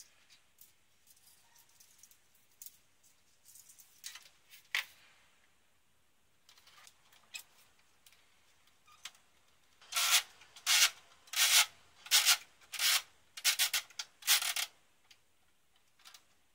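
Hands handling a plastic VHS cassette shell with loose tape: scattered light clicks, then a run of about seven short rubbing strokes, roughly two-thirds of a second apart, near the end.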